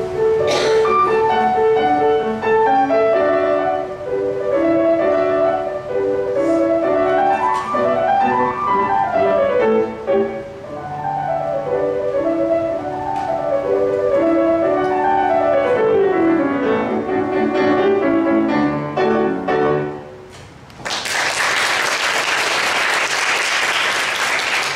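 Solo grand piano playing a classical piece with quick scale runs rising and falling, ending about twenty seconds in. After a brief pause, audience applause.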